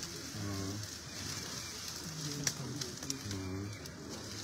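Men's voices in three short, held phrases over a steady hiss, with a few sharp crackles about two and three seconds in.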